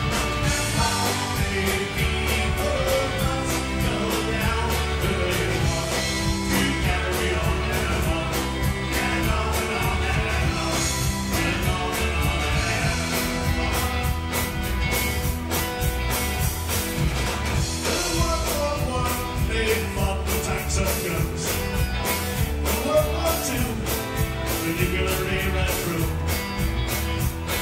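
Live folk-rock band playing through a stage PA: electric guitar, bass guitar and drums with a steady beat.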